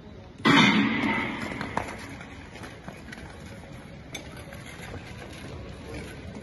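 Starting gun firing about half a second in, its bang ringing out in the ice hall and fading over a second or so, then skate blades scraping and clicking on the ice as the short-track skaters sprint off the start.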